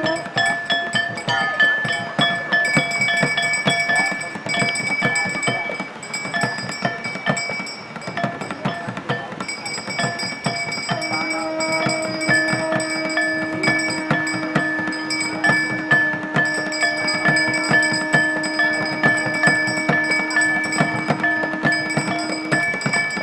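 Garhwali dhol and damau drumming in a fast, dense beat, with a metal bell ringing steadily over it. A steady low tone joins about halfway through and stops near the end.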